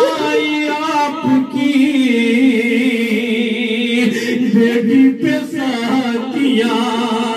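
A man chanting a noha, an Urdu mourning lament, a cappella into a microphone, drawing out long held notes with a wavering pitch.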